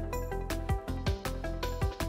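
Background music with a steady beat and sustained pitched notes.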